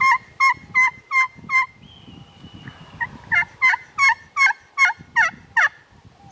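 Wild turkey yelping: a run of five yelps about three a second, a short pause, then about eight more, the last few dropping lower in pitch. This is the hen yelping used to call in a tom.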